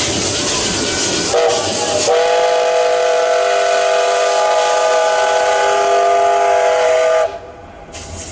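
Steam locomotive hissing steam, then its whistle sounds: a short blast and then one long multi-note blast of about five seconds that stops suddenly.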